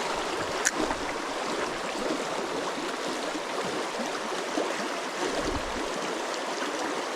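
Small river's current rushing steadily over its bed, with one short click about a second in.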